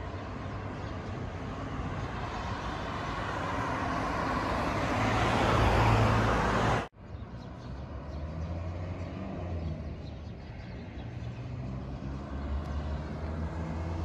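Road traffic noise: a car's rushing sound grows louder for several seconds and then cuts off abruptly about halfway through. A quieter, steady traffic hum with a low engine drone follows.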